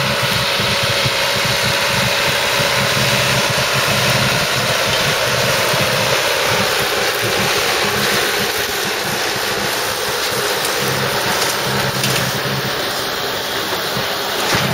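John Deere 2850 tractor's diesel engine running steadily while it drives a John Deere 342A small square baler through straw, the baler's machinery working alongside.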